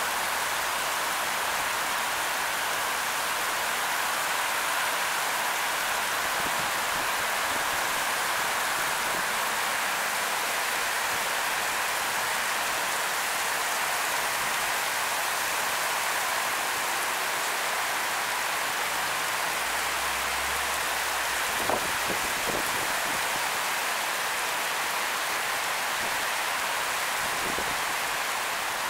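Torrential rain pouring onto a paved street: a steady, dense hiss that does not let up. A couple of short sharp knocks sound about three-quarters of the way through.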